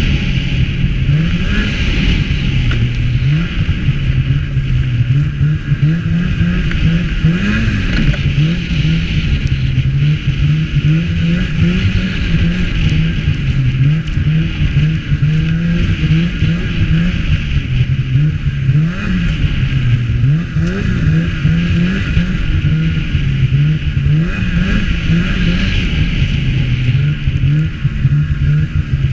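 Snowmobile engine running loud and continuously while under way, its pitch rising and falling again and again as the throttle is worked.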